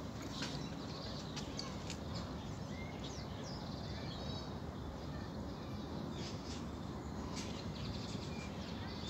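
Small birds chirping: scattered short high calls and one brief rapid trill about four seconds in, over steady low outdoor background noise.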